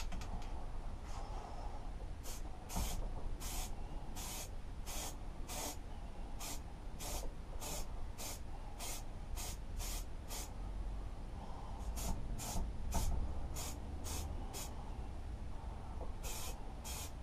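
Aerosol spray paint can hissing in short bursts, about two a second, with a pause a little past halfway and another before two last bursts near the end.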